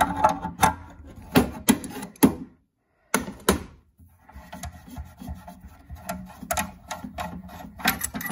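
Adjustable spanner clicking and scraping on a brass pipe nut as it is loosened, then the nut spun off by hand: a run of sharp metallic clicks and knocks with softer rubbing between them, broken by a short pause about three seconds in.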